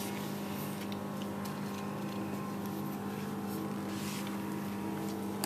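A steady, low machine hum of several unchanging pitches, with a few faint ticks over it.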